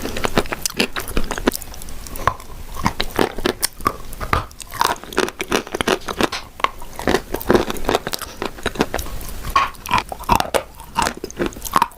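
Chalk spread with a blue clay cream being bitten and chewed: a dense run of crunchy bites and crackles.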